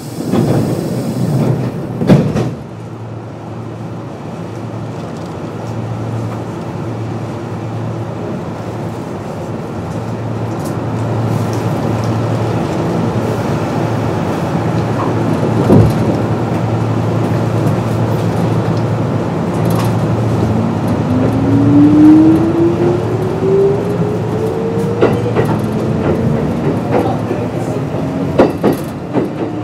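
Kintetsu 8600 series electric train with field-phase control pulling away. A loud knock comes about two seconds in, then the running noise builds over a steady low hum. From about two-thirds of the way through, a single motor whine rises in pitch as the train accelerates, with a few sharp clicks near the end.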